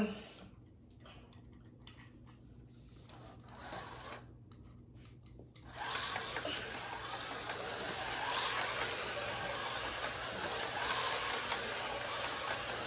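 A few faint clicks, then about six seconds in HO-scale slot cars set off around the plastic oval. Their small electric motors whir steadily, with the rattle of the cars' pickup shoes on the track rails, and the sound keeps on as they lap.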